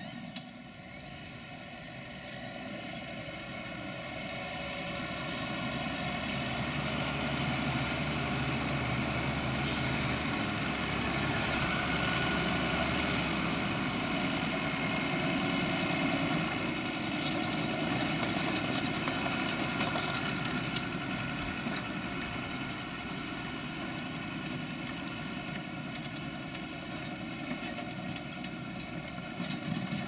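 John Deere tractor's diesel engine running under load while pulling a plough through the soil. It grows louder over the first dozen seconds, peaks around the middle as the tractor passes close, then gradually fades.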